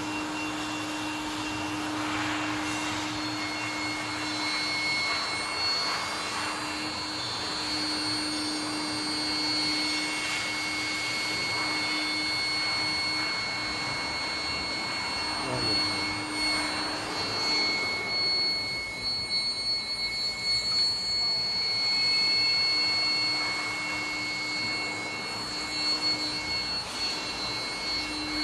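Small induction melting furnace running on test: a steady low electrical hum with thin, high-pitched whining tones over a constant hiss.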